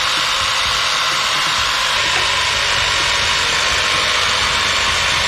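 Battery-powered handheld pressure washer running, its motor and high-pressure water jet making a steady, unbroken hiss.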